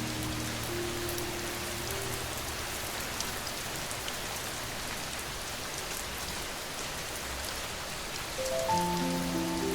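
Steady rain falling, with scattered drop ticks. Soft piano notes fade out in the first couple of seconds, and a new piano phrase comes in near the end.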